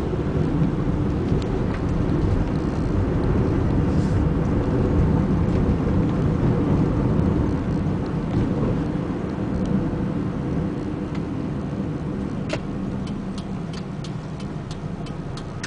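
Taxi cabin noise while driving: steady engine and tyre rumble heard from inside the car. A run of regular light ticks begins a little over three-quarters of the way through.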